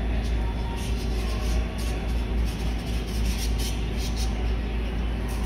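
Store background noise: a steady low rumble with faint scattered clicks and rustles.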